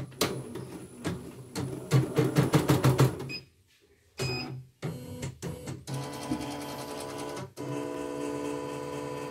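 CNY portable embroidery machine running: a fast run of needle-bar knocks, then after a short pause a steady motor whine with a clear pitch for the last few seconds. The machine is badly clogged with dirt and turns heavily, and the technician calls its crunching knock off.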